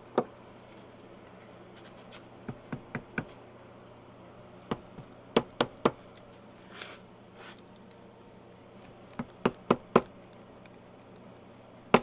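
Hammer striking steel, pounding flat the folded-over tab of the safety lock washer on a Harley-Davidson Ironhead Sportster's transmission sprocket nut. About fourteen sharp metallic taps with a brief ring, in quick bursts of three or four separated by pauses of a second or more.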